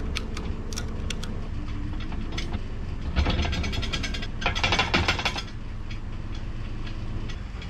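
Ratchet strap being cranked tight by hand: two runs of rapid ratchet clicking, about three seconds in and again from about four and a half to five and a half seconds, with a few single clicks in the first second, over a low steady rumble.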